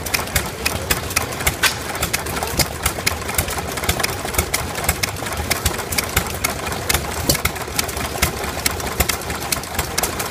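Small single-cylinder gas engines running: a replica of Henry Ford's 1893 first engine and an Economy hit-and-miss engine. A steady low chugging runs underneath sharp, regular clicking knocks, about three a second.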